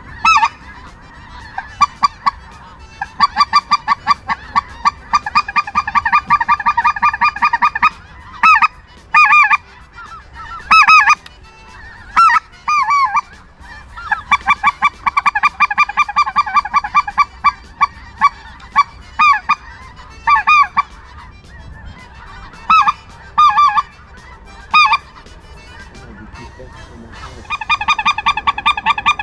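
Geese honking: dense runs of rapid, overlapping honks from about 3 to 8 seconds and 14 to 19 seconds in and again near the end, with scattered single and paired honks in between.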